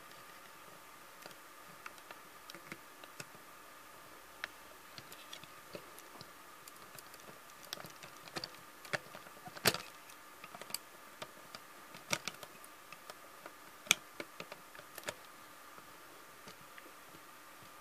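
Irregular small clicks and taps of a diecast model car being handled and pushed on the ramp of a model car transporter, thickest in the middle, with two sharper clicks about ten and fourteen seconds in, over a faint steady hum.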